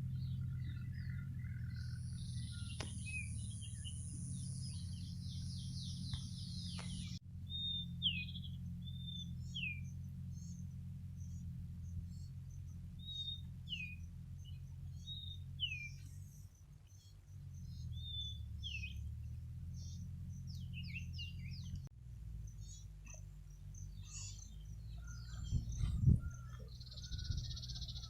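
Outdoor birdsong: a bird repeats short, falling whistled notes every second or two over a steady low rumble, after an earlier high trill. A louder knock comes near the end.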